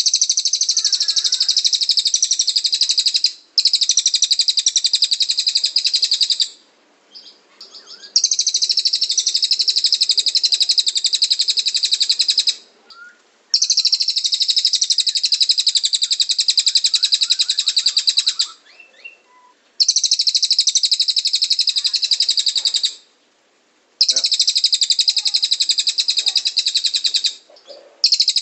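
Cililin bird singing in full 'tembakan' style: long, fast, high-pitched trills of rapidly repeated notes. Six trills of three to five seconds each come one after another with short pauses between, and a seventh begins at the very end.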